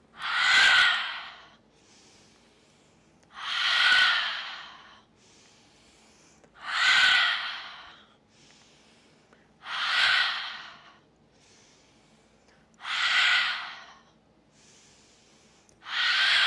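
A woman's forceful open-mouth exhales, a breathy 'ha' about every three seconds, six in all, with faint nose inhales between them. This is the rhythmic breath of a yoga chi-force movement: in through the nose, out through the mouth with each push.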